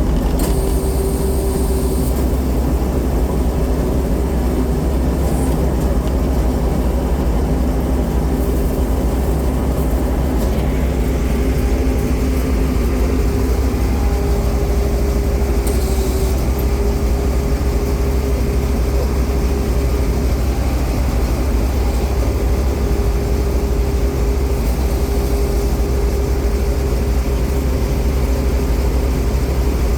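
Combine harvester running steadily: a loud, constant low engine drone with a steady hum from the machine's drives.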